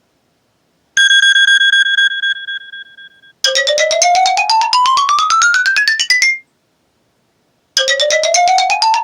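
An iPhone ringtone played through a JBL Flip 3 Bluetooth speaker. First a single held beep that fades out, then a fast run of short electronic notes climbing steadily in pitch for about three seconds. The run starts over about a second and a half later.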